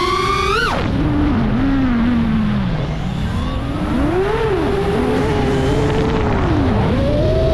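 FPV drone motors whining. The pitch climbs to a high peak, drops sharply under a second in as the throttle is cut, then swings up and down with repeated throttle changes and rises again near the end, over a steady rush of air noise.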